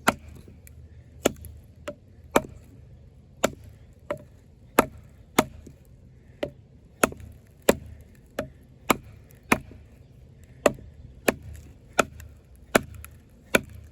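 A wooden baton hammering the spine of a large fixed-blade bowie knife to drive it through a log: about twenty sharp wooden knocks in a steady rhythm, roughly one every two-thirds of a second.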